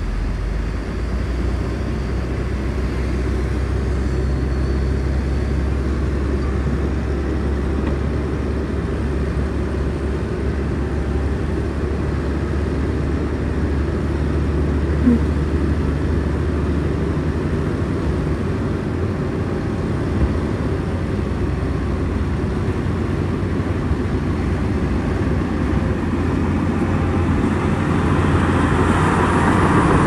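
Heavy diesel engine of construction machinery running steadily with a low drone, growing louder near the end.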